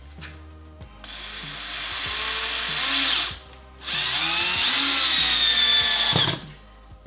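Cordless drill driving a screw through a plastic slatwall panel into a wall stud, in two runs with a short pause between; the motor's pitch drops at the end of the second run.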